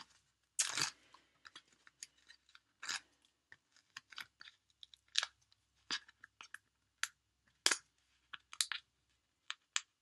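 Stampin' Dimensionals foam adhesive dots being peeled by hand from their leftover backing sheet: an irregular scatter of small crackles and ticks of paper and plastic.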